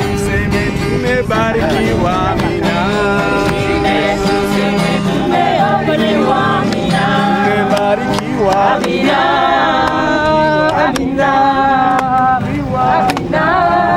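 Music with singing voices, a melody carried over instrumental accompaniment and continuing without a break.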